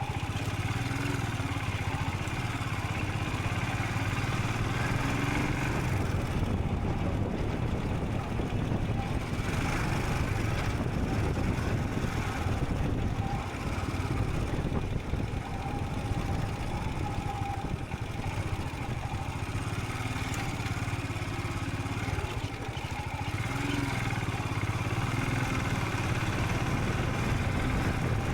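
Royal Enfield Scram 440's single-cylinder engine running steadily under way, its note easing and building a few times as the throttle changes, under a constant rush of wind and road noise.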